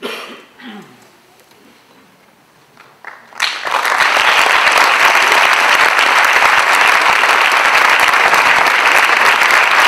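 A few quiet seconds, then a theatre audience breaks into applause about three and a half seconds in, and the clapping stays steady and dense.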